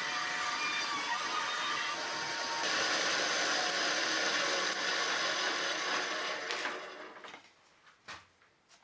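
Homemade wood-framed bandsaw, driven by a 1.5 kW three-phase induction motor, running and cutting wood. The sound gets brighter about two and a half seconds in, then dies away over about a second around seven seconds in, followed by a few faint knocks.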